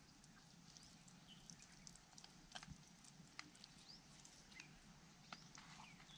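Near silence: faint outdoor background with scattered soft clicks and a few brief high chirps.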